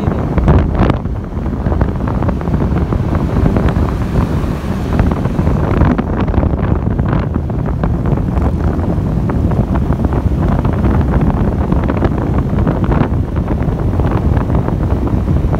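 Wind buffeting the microphone of a moving motorcycle at road speed: a loud, steady, low rumble, with the bike's running noise mixed in.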